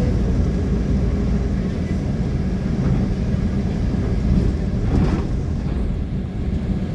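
Steady low rumble of engine and road noise heard from inside a moving road vehicle, with a brief louder swell about five seconds in.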